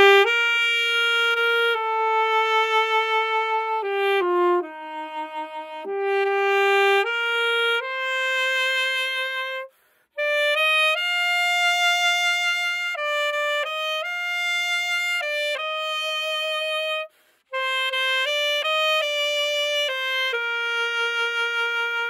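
Unaccompanied alto saxophone playing a slow, ornamented melody, with vibrato on the long held notes. There are two short breath pauses, about ten and seventeen seconds in.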